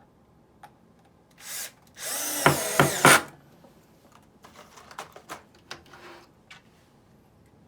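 Power drill driving a number 10 one-inch screw into a piece of 1x4 wood: a short blip, then about a second of running with a wavering whine as the screw goes in. Light clicks and knocks of handling follow.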